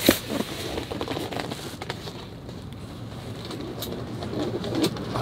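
A sharp knock right at the start, then scattered lighter clicks and knocks over a low, steady street hum, from a hand truck and cardboard produce boxes being handled.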